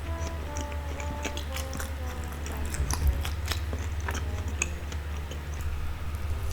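Light background music, a melody of short held notes over a steady bass, with many small sticky clicks from handling or eating glutinous rice.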